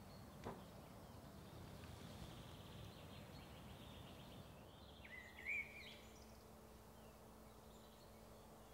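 Near silence: faint outdoor ambience, with a few faint high bird chirps around the middle.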